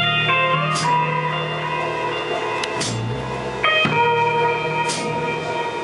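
Live rock band playing a slow passage: guitar chords struck twice and left ringing, over bass guitar notes and sparse drum hits about every two seconds.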